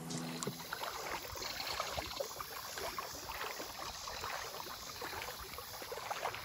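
Water sloshing and splashing around the legs of someone wading through a slow river, an irregular run of small splashes.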